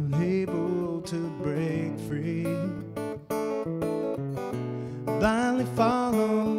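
Steel-string acoustic guitar being strummed and picked, playing chords under a wavering melody line.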